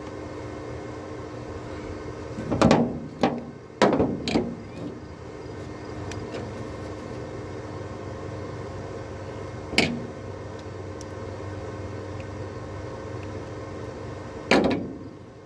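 Harbor Freight 125 flux-core welder humming steadily, broken by several short sputtering arc strikes that do not hold: a cluster of three or four a few seconds in, then one single burst near the middle and one near the end. The welder is not yet welding properly.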